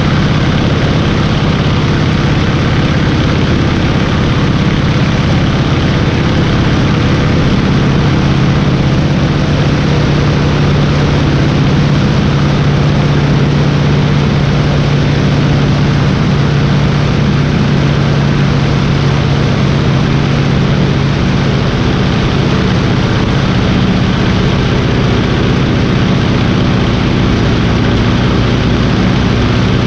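Stearman biplane's radial engine and propeller running steadily in flight, under a constant rush of air. The engine note shifts slightly about ten seconds in.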